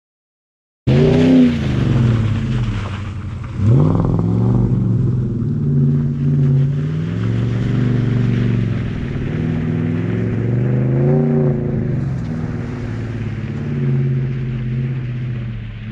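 An engine running and revving, starting abruptly about a second in, its pitch rising and falling again and again.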